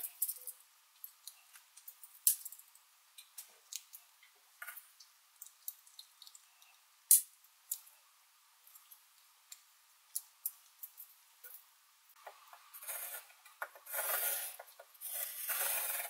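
Victorinox Swiss Army knife's metal tools clicking and snapping as they are opened and handled. In the last few seconds the knife's pen tip scrapes and scratches across paper.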